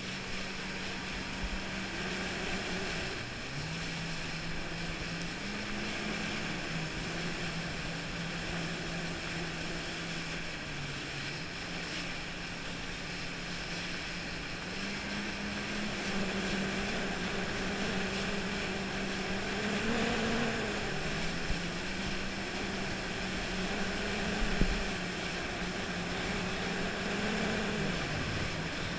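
Jet ski engine running, its pitch stepping up and down several times as the throttle changes, over a steady hiss of wind and water.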